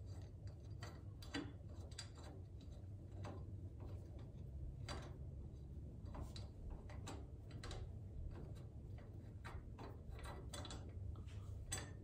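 Faint, scattered metallic clicks of a hand tool working on bolts as they are unscrewed from a motorcycle footboard hanger, over a low steady hum.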